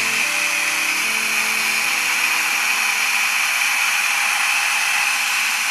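Trevi 12-band portable radio tuned off-station on FM, giving a steady static hiss. Faint held tones from a station fade out in the first two seconds.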